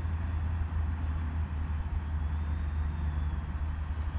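Electric motors and propellers of a small FPV model aircraft whining in flight, the high whine drifting up and then back down in pitch in the middle, over a steady low rumble of wind and vibration.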